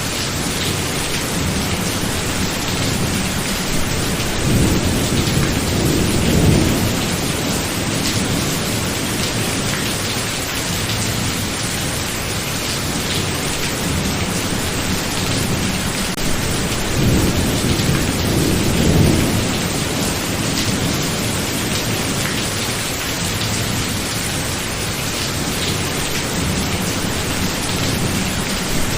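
Thunderstorm: steady heavy rain with deep rolls of thunder. The two biggest rumbles build and fade about five seconds in and again about two-thirds of the way through.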